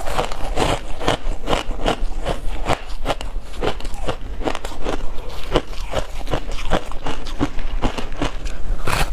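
Dense reshaped ice coated in milk powder being bitten and chewed: an irregular run of sharp crunches, several a second.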